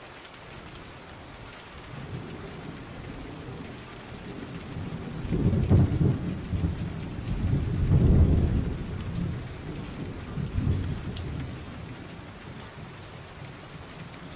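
Colour pencil scribbling back and forth on paper as a picture is coloured in, picked up through the table as a low, rumbling rustle that grows louder in the middle.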